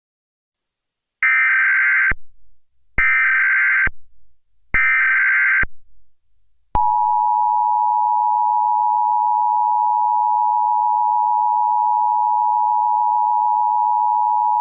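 Emergency Alert System tones. Three short bursts of digital header data come about a second apart, starting about a second in. Then, about five and a half seconds in, the EAS two-tone attention signal begins: a steady, loud two-note tone that holds on.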